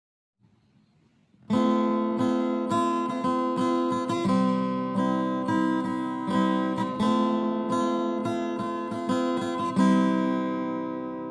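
Background music: acoustic guitar strummed and picked in a steady rhythm, starting about a second and a half in.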